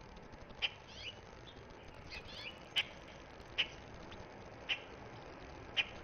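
Northern cardinals giving sharp, very short chip calls about once a second, five in all, with a few softer twittering notes in between during the first half.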